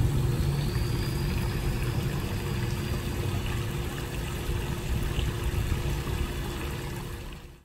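Steady low rumble with a constant hum underneath, fading out quickly at the very end.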